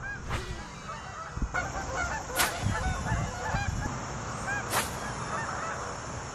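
A flock of birds calling, many short overlapping calls at once, thickest from about a second and a half in until near the end. Three short, sharp sounds stand out above them.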